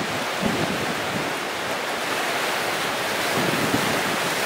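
Sea waves washing in over a rocky shore, with the surf swelling as a wave breaks over the rocks in the second half. Wind gusts rumble on the microphone now and then.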